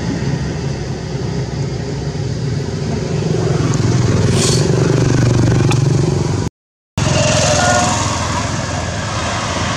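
A motor vehicle engine running steadily, heard as a low hum. The sound drops out for about half a second roughly six and a half seconds in, then returns.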